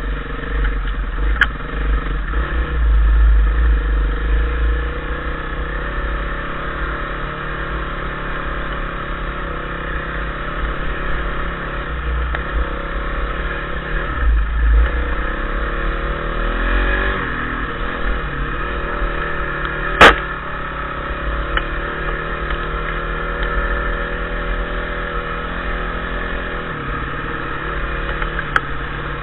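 Dirt bike engine running under way on a rough track, its pitch rising and falling as the throttle changes, with a low wind rumble on the microphone. A single sharp knock about two-thirds of the way through is the loudest sound.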